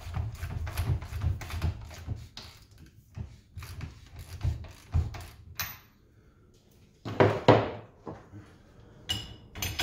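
Ratchet wrench clicking in a quick series as the top nut is run down on a coilover shock shaft. About seven seconds in come two louder knocks, and near the end a few short metallic clinks that ring.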